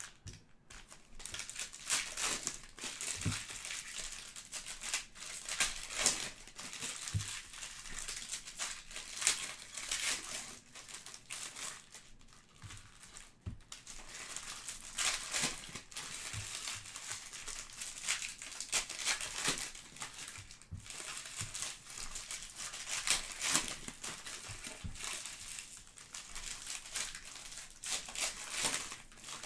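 Foil trading-card pack wrappers crinkling and tearing as packs are handled and ripped open by hand: dense crinkling with frequent sharp crackles.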